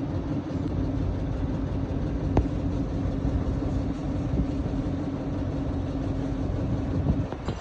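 Old Mercedes truck engine running steadily with a low rumble and a steady hum, which drops away shortly before the end. A single sharp click about two and a half seconds in.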